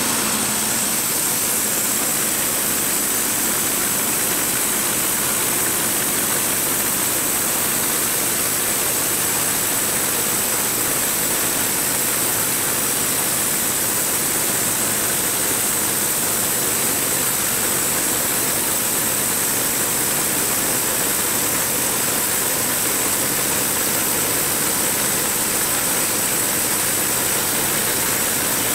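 Gas-engine-driven portable bandsaw mill running under load as its blade saws a slab off a white ash log: a loud, even, unchanging noise with a strong high hiss.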